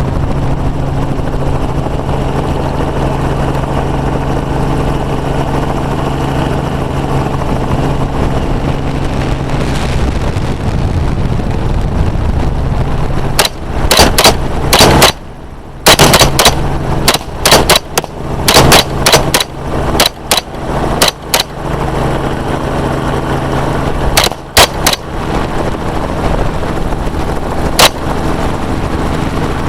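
Helicopter running steadily overhead, with gunshots fired from it: a rapid string of shots starting about halfway through, then a few scattered shots near the end.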